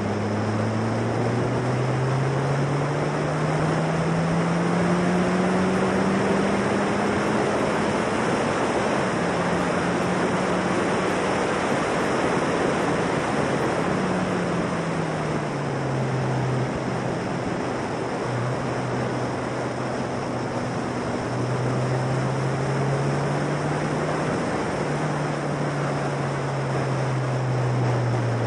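Formula Silverstone single-seater's 1.6-litre Ford Duratec four-cylinder engine under way, heard onboard through loud wind rush on the microphone. The engine note climbs slowly over the first several seconds, drops about halfway through, then rises again.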